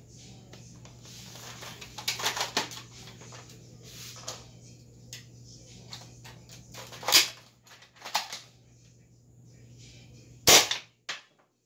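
Spring-powered Nerf Big Bad Bow blaster, fitted with a Longshot spring, being handled and fired. A cluster of plastic clacks comes about two seconds in, then sharp snaps, the loudest two about seven and ten seconds in.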